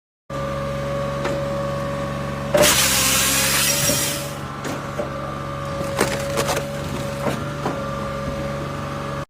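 Electric chainsaw running with a steady motor whine. About two and a half seconds in it cuts into wood for over a second with a loud burst of cutting noise, then runs on with several sharp knocks. The sound starts and stops abruptly.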